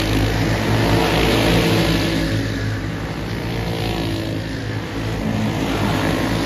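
A pack of dirt-oval racing karts running at high revs, several small engines buzzing together. The sound swells and fades as the karts pass.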